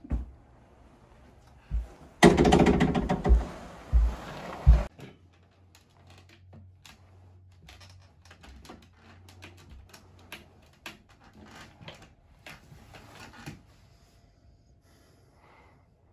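Movement and handling noises: a loud scraping rush with several heavy thumps from about two to five seconds in. After that come scattered faint clicks and knocks.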